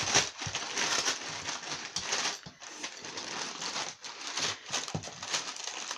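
Wrapping paper crinkling and tearing in irregular bursts as a gift is being ripped open.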